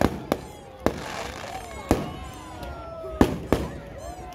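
Aerial firework shells bursting: a series of sharp bangs at irregular intervals, the loudest about three seconds in.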